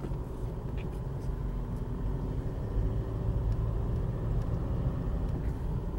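Isuzu MU-X four-wheel drive driving along a dirt track, heard from inside the cabin: a steady low rumble of engine and tyres with a few faint ticks and rattles.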